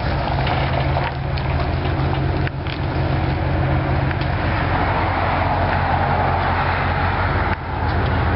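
A vehicle engine idling steadily, a low even drone.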